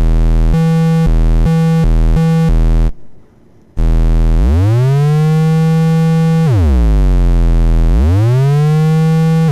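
DIY Arduino-controlled monophonic analog synthesizer playing a buzzy tone between a low and a higher note. First the pitch jumps straight from note to note several times with portamento off. After a short break, the same notes slide slowly up and down into each other with the portamento glide at an extreme setting.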